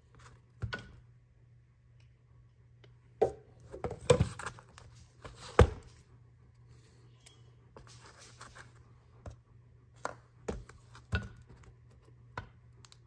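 Needle-nose pliers and other metal hand tools handled on a wooden workbench: a string of sharp clicks and clacks as they are picked up, worked and set down, loudest between about three and six seconds in. A steady low hum runs underneath.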